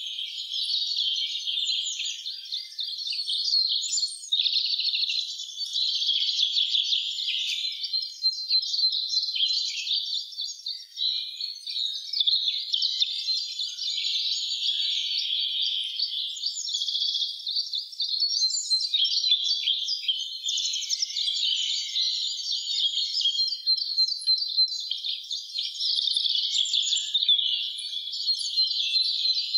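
Spring forest birdsong: many songbirds singing at once in a continuous, overlapping chorus of chirps and rapid trills, with a few held whistles now and then.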